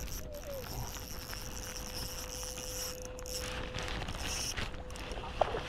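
Insects buzzing steadily in high, even bands, with some rustling handling noise and one sharp click near the end.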